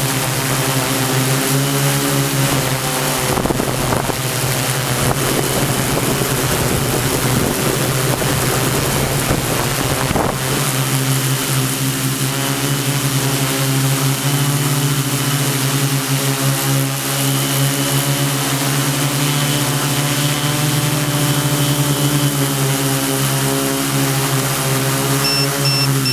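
Large multirotor drone's electric motors and propellers spinning steadily, a loud droning hum with a rushing hiss of prop wash. A low rumble under it drops away about ten seconds in.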